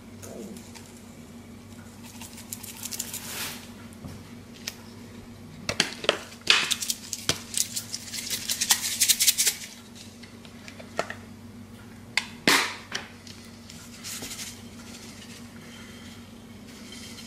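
Plastic seasoning shaker shaken over raw chicken thighs: bursts of dry rattling as the grains shake out, in a dense run of quick shakes in the middle and a few single shakes later. A steady low hum runs underneath.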